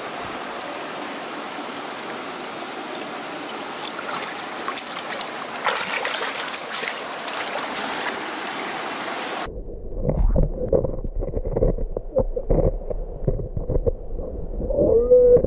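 Shallow stream rippling over gravel. About nine and a half seconds in, the sound turns muffled as the camera goes underwater, giving a low rumble and irregular knocks of water and handling against the camera. A brief wavering muffled tone comes near the end.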